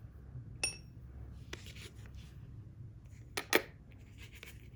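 Light clicks and taps from hands handling a carp hair rig's hook, lead bead and swivel on paper: a short metallic ping about half a second in and a sharper double click about three and a half seconds in, over a low steady rumble.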